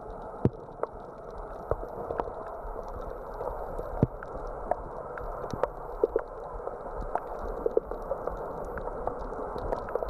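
Underwater ambience picked up by a camera over a rocky reef: a steady, muffled hiss with scattered sharp clicks and crackles throughout.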